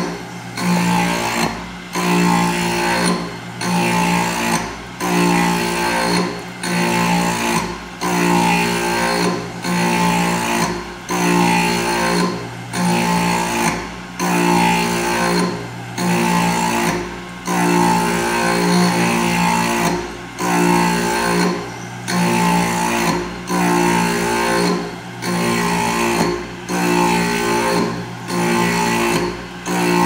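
Background music with a plucked, guitar-like sound and a phrase that repeats about once a second, each phrase ending in a brief gap.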